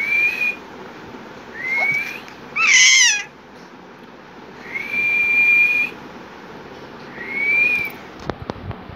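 A person whistling four single high notes, each rising a little and then held, the longest about a second. About three seconds in comes a louder, higher squeal that falls in pitch. A few sharp handling clicks come near the end.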